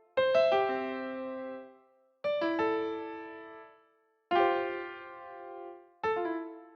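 Windows sound-effect melodies played as four short chime phrases in a row. Each is a few quick bell-like keyboard notes that ring out and fade, with brief gaps between them.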